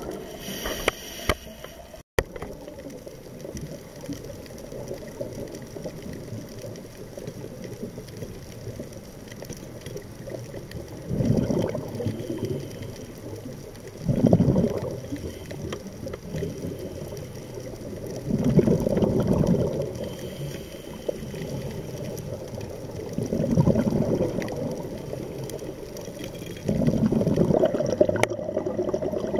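Scuba regulator breathing heard underwater: five gurgling bursts of exhaled bubbles, one every four to five seconds, over a steady low rush of water.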